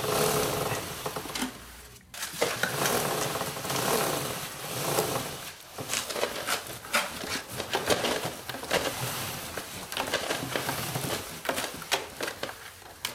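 A kerosene-wet rag rubbed along a Honda Africa Twin's roller drive chain in repeated strokes, the metal links clicking and clinking under it, with a brief pause about two seconds in.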